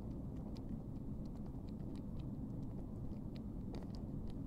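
Cat grooming, licking and nibbling at its fur: a run of small, quick, irregular clicks over a low steady rumble.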